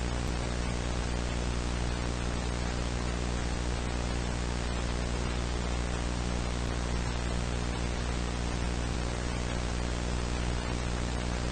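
Steady static hiss with a low electrical hum underneath, unchanging, in the style of a dead analog broadcast signal.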